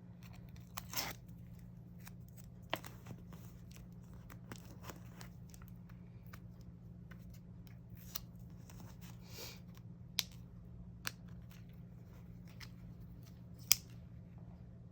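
Faint rustling and scattered sharp clicks of plastic and paper packaging being handled while unpacking photo cards, with the sharpest click near the end, over a steady low hum.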